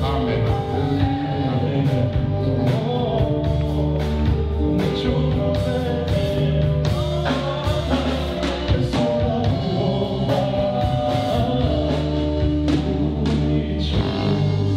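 Church band music with singing: held notes over a steady bass line, guitar and a regular beat.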